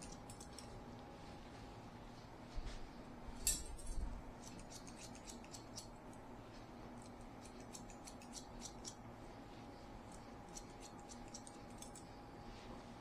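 Barber's scissors snipping hair: quick, irregular runs of small metallic clicks, a few louder ones around three to four seconds in, over a faint steady hum.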